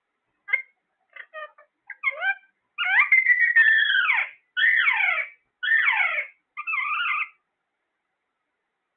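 Parrot vocalizing: a few short chirps, then four longer drawn-out calls, mostly falling in pitch and meow-like.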